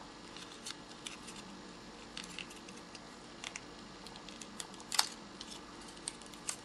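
Light crinkling and ticking of folded paper being handled as the pleated paper wings of an accordion-folded butterfly are spread open, with one sharper crackle about five seconds in.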